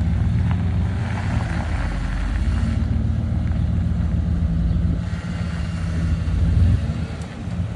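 A motor vehicle's engine running steadily with a low hum, swelling briefly about six and a half seconds in.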